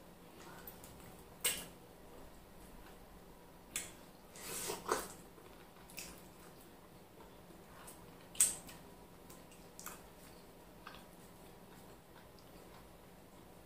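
Eating sounds: scattered short wet smacks and squelches from hands and mouth working a morsel of semolina dipped in slimy ogbono soup, the loudest about eight seconds in.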